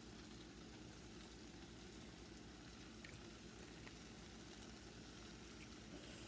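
Faint, steady sizzle from a frying pan on the stove, over a low hum, with a couple of light ticks about three seconds in.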